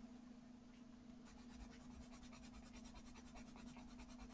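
Faint scratching of a colouring tool on watercolour paper: rapid, even back-and-forth strokes filling in a colour swatch, starting about a second in.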